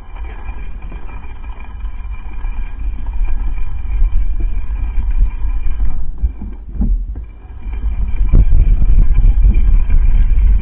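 Mountain bike rolling fast over a gravel dirt track, heard from a camera on the front fork: a steady low rumble of tyre-on-gravel and wind noise. It eases off briefly about seven seconds in, then grows louder toward the end.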